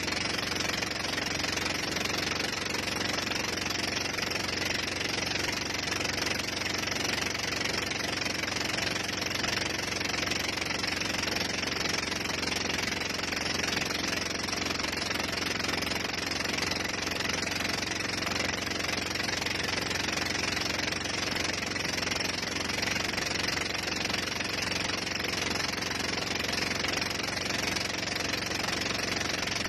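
Motorboat engine running steadily at speed while towing a banana boat, over a constant rush of water and wind.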